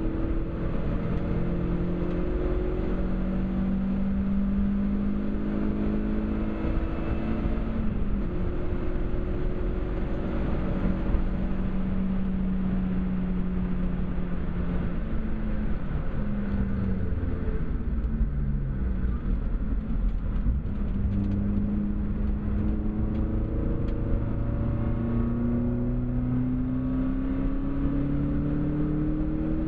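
Seat Cordoba Cupra's 2.0 16V four-cylinder engine under hard acceleration on track. The revs climb repeatedly and drop back at each upshift. About halfway through, the revs fall away under braking and downshifts, then rise again through the gears, with road and wind noise underneath.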